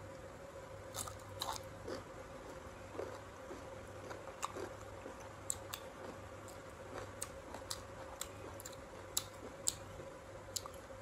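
A person biting and chewing crisp raw sour fruit, with irregular sharp crunches every half second to a second.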